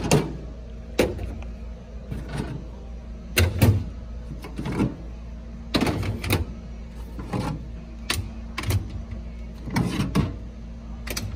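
Cordless power tools being pulled one after another out of a rack of PVC pipe holders in a drawer. The plastic tool bodies clack and knock against the PVC at irregular intervals, about a dozen times.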